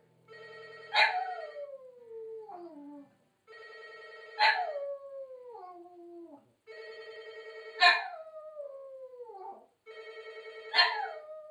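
Dog howling along with a phone's ringtone. The trilling ring repeats four times, about every three seconds, and with each ring the dog gives a howl that starts high and slides down in pitch.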